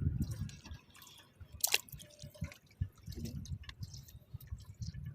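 Water sloshing and dripping, with irregular small knocks and a brief falling squeak about a second and a half in.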